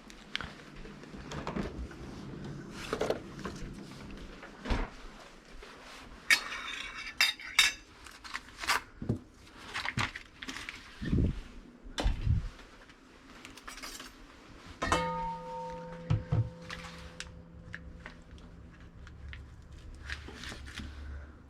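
Cutlery and dishes clinking and knocking in a string of separate clicks, with a metallic rattle about a third of the way in. About two-thirds through, one dish or pan is struck and rings on for a few seconds.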